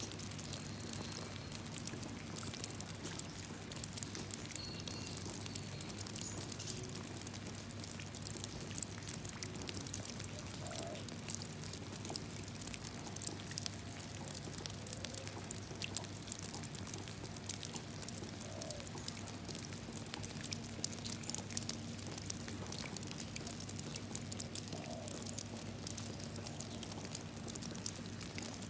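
Rain falling into a puddle: a steady, dense patter of many small drops ticking irregularly on the water, over a faint low hum.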